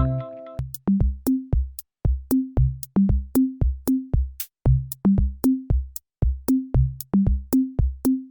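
Electronic background music: a drum-machine beat of kick drums and short plucked bass notes, about three a second, with the fuller synth chords dropping out about half a second in.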